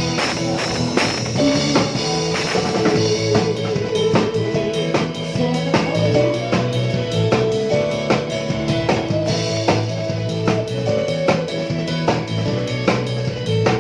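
Live band playing a worship song, with a drum kit (kick, snare and rimshots) keeping a steady beat under sustained chords and a bass line.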